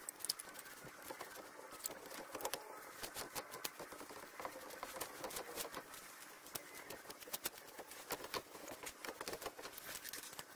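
Brush scrubbing rusty pistons and connecting rods under vinegar in a plastic tub: liquid sloshing and splashing, with many small, irregular clicks and scratches.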